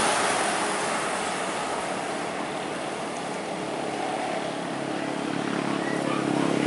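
Road traffic: a coach bus drives away with motorcycles following, a steady engine and tyre noise. An engine hum grows louder near the end as another vehicle comes close.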